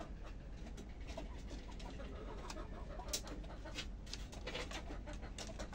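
Domestic chickens settling on their roost, giving soft, low clucks, against a busy scatter of short high ticks.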